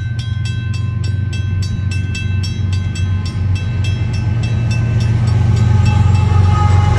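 Railroad crossing bell ringing steadily at about four strikes a second. Under it the low diesel engine rumble of an approaching CN freight locomotive grows louder, and it drowns out the bell near the end.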